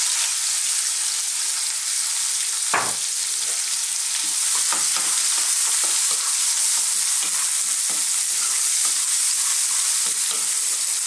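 Chopped onion sizzling steadily in hot oil in a nonstick wok, with a wooden spoon scraping and tapping as it is stirred. There is one sharper knock about three seconds in.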